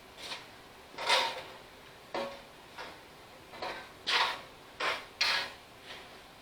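A run of irregular short metal clunks and scrapes, about nine in all, loudest about a second in and again near the end, as the tractor's steel frame rail is worked loose from the rear axle housing.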